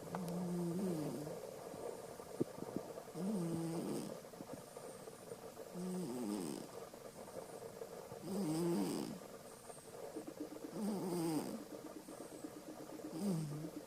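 Domestic cat snoring in its sleep, fairly loudly: six snores in a slow, even rhythm, about two and a half seconds apart.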